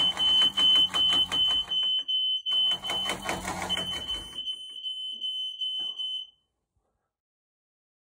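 A smoke alarm for the hearing impaired sounding on test: a high-pitched beeping tone, joined by the rapid buzz of its vibrating pad, which stops about four and a half seconds in. The alarm cuts off about six seconds in.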